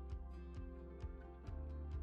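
Quiet background music: sustained chords with a steady bass under a light, regular ticking beat.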